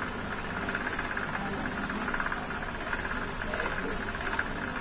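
Steady background noise: an even hiss with a faint low hum, unchanging throughout.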